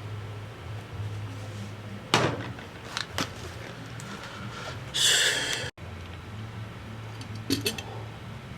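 Small clicks and taps of tools and parts being handled on a MacBook Pro under repair, over a steady low hum. About five seconds in there is a short hiss, cut off abruptly.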